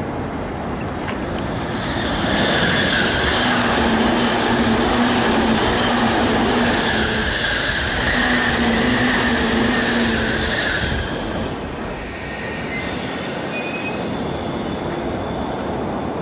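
An E233 series electric commuter train running through the station at speed on the next track: a loud rush of wheel and running noise with a steady high whine begins about two seconds in and lasts about ten seconds before dropping away. A lower, steady noise remains afterwards.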